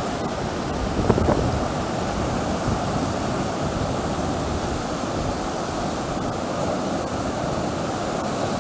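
Ocean surf washing over a rocky reef shore, a steady rushing noise, with some wind on the microphone.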